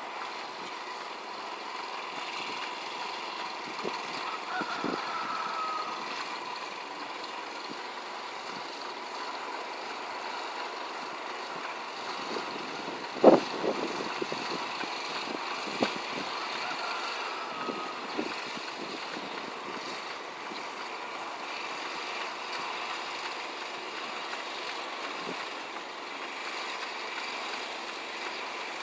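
Small engine of a rice transplanter running steadily, with scattered clicks and one sharp knock about halfway through.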